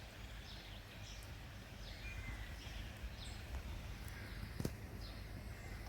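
Small bird chirping: short, high, downward-sweeping notes repeating about once a second over a steady low rumble, with one sharp click about three-quarters of the way through.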